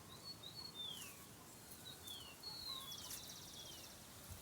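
Wild birds calling faintly: several short whistled notes that slide downward, with a brief rapid trill about three seconds in, over a steady background hiss.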